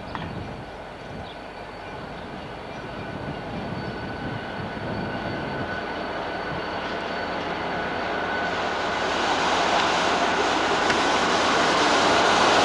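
V/Line A class diesel-electric locomotive approaching with its train, its engine and wheel noise growing steadily louder as it draws near, under a steady high whine.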